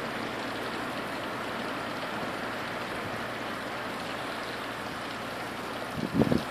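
Steady hiss of heavy rain and wind, with a brief gust buffeting the microphone about six seconds in.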